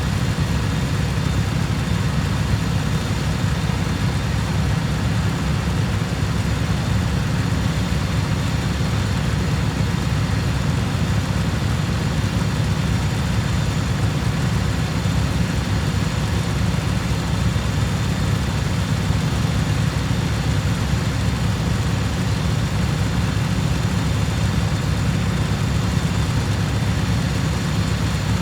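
An engine idling steadily, a low, even rumble that does not change.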